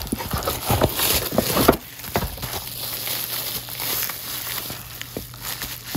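Crinkling and rustling of a Priority Mail envelope and bubble wrap being handled and pulled apart, with scattered crackles. Busier and louder in the first two seconds, softer after.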